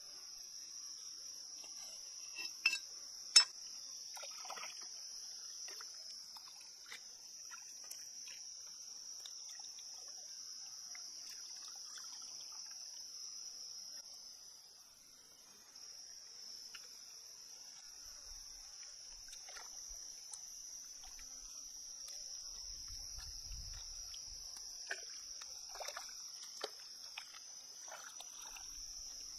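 A steady, high-pitched insect chorus chirring throughout. About three seconds in come two sharp knocks of a cleaver chopping on a stone slab. Later there is light splashing and dripping of water as fresh vegetables are rinsed.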